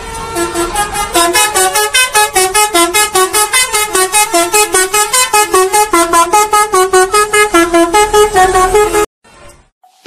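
Indonesian bus 'telolet basuri' musical horn playing a fast melody of short notes, about five a second, stepping up and down in pitch; it cuts off suddenly about nine seconds in.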